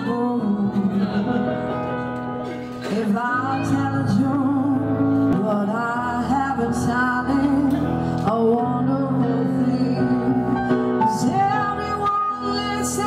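Live piano with a woman singing into a microphone, amplified through the bar's sound system, in long held notes.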